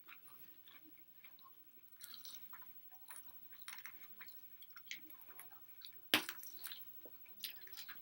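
Close-up eating sounds: wet chewing, squishing and lip smacks in short scattered bursts, with one sharp click about six seconds in that is the loudest sound.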